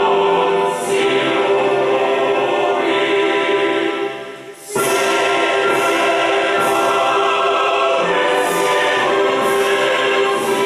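A choir singing slowly in long held notes, with a short pause between phrases about four and a half seconds in.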